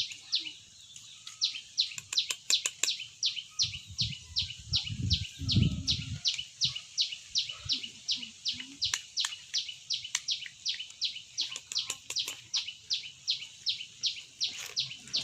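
A bird chirping steadily and insistently, about three short downward-sweeping calls a second, with some low handling thumps and clicks in the middle.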